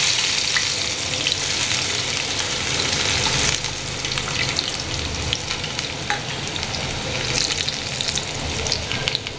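Diced onion sizzling as it goes into hot oil in a frying pan, a steady hiss with scattered crackles. The sizzle is loudest for the first three seconds or so, then settles a little.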